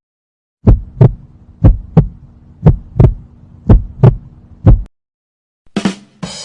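Heartbeat sound effect: low thumps in lub-dub pairs, about one beat a second, over a faint steady hum, stopping about five seconds in. Near the end a short hit and the start of the next effect, a noisy swish.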